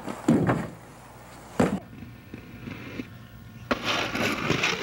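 Two sharp impacts about a second and a half apart, a skater's wheels slamming down on landing, then, about a second from the end, a steady rush of inline skate wheels rolling fast on asphalt.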